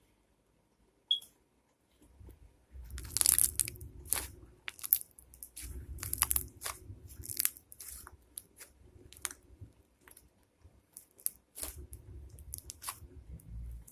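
Homemade glue slime mixed with shaving cream being squeezed and stretched by hand, giving irregular crackling pops and squelches in several bursts.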